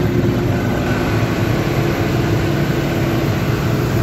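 Truck engine running steadily while driving, heard from inside the cab, with road noise and a low hum.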